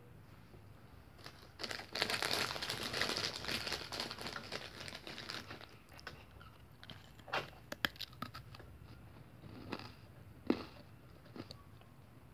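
Something crinkly being crumpled and handled, starting about two seconds in and lasting a few seconds, followed by a few scattered light clicks and taps.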